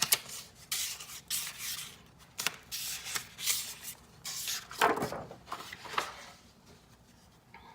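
A series of short rubbing strokes against a surface, about one every half second, stopping near the end.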